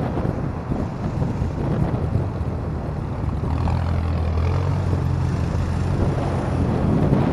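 Small motorcycle riding in traffic: its engine runs with wind noise on the microphone. A steady low engine drone grows stronger about halfway through as it passes between cars.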